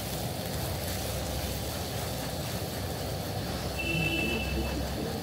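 Ground green-pea paste frying in oil in a pan over a low flame, a steady sizzle with a low rumble under it. A brief high tone sounds about four seconds in.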